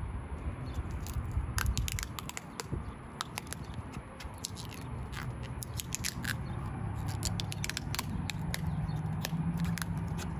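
Rubbery Plasti Dip coating being picked and peeled off around a truck's chrome emblem with a thin pick: scattered small crackling, scraping clicks, over a low hum that sets in during the second half.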